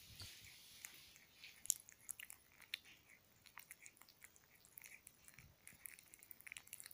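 Young puppies eating crumbly egg yolk: faint, quick, irregular smacking and licking clicks from their mouths, with one louder smack a little under two seconds in.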